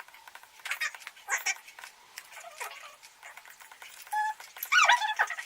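A domestic cat meowing a few short times, with scattered light clicks and taps in between.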